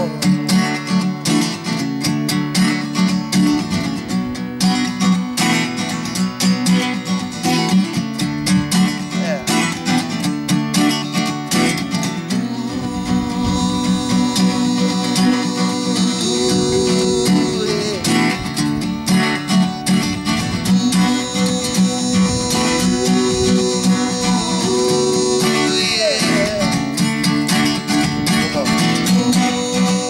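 Acoustic guitar strummed in a steady rhythm, an instrumental passage of a folk song with no lyrics sung. The playing grows fuller and more even about halfway through.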